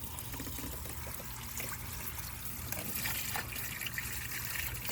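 Water from a garden hose spraying and trickling steadily over a car battery and its terminals, rinsing off baking-soda and battery-acid residue.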